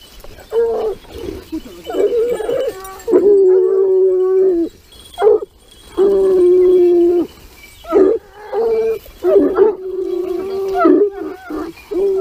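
Gascon Saintongeois hounds giving tongue on wild boar: long, level bays held a second or more, with shorter yelping cries between them.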